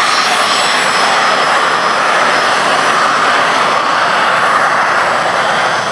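Two BAC Jet Provost T.5 trainers' Viper turbojets running on the ground, a loud, steady jet noise with a high-pitched whine over it.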